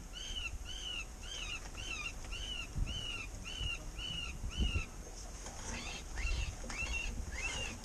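Electronic predator caller playing a call through its speaker: a repeated short high note about two and a half times a second, changing about five seconds in to steeper, less regular notes.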